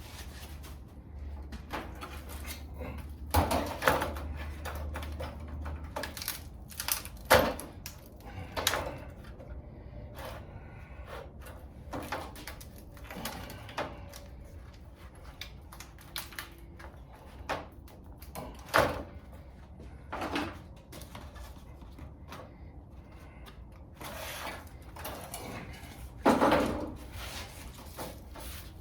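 Irregular knocks and clatters, a dozen or so spread unevenly, a few of them louder, over a low hum that stops about six seconds in.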